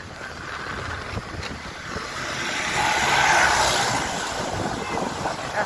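Wind rushing over the microphone with the running noise of a vehicle travelling along a dirt road, swelling louder for a couple of seconds around the middle.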